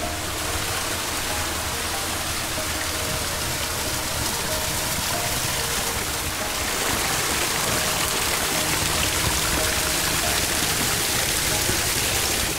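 Small waterfall splashing and rushing over sandstone: a steady, even rush of water that grows a little louder about halfway through.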